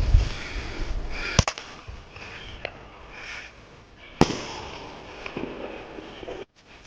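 Double-bang firecracker (erjiaoti) going off: a sharp bang about a second and a half in as it launches, then a second sharp bang nearly three seconds later as it bursts in the air.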